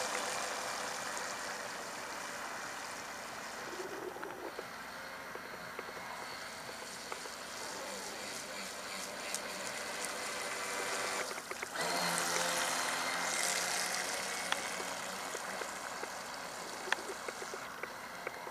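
Red Dolphin RC boat's battery-powered electric motor and water spray heard at a distance, a steady hiss with a faint whine. It fades after the start and grows louder again about twelve seconds in.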